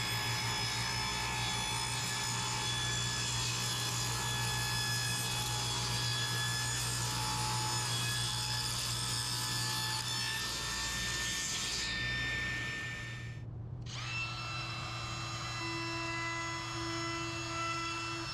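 Table saw running and cutting through a hardwood end grain cutting board, a steady loud saw noise with a low hum underneath. Near the end of the cut the noise tails off, and after an abrupt break a DeWalt cordless compact router runs with a steadier, thinner whine.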